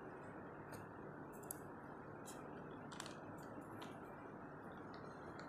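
Faint scrapes of a plastic spatula stirring custard in a metal pan, a short stroke about every second, over a steady low hiss.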